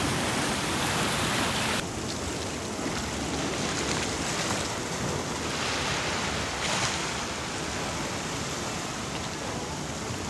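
Ocean surf washing against a rocky shore: a steady rushing wash of waves that drops suddenly in level about two seconds in.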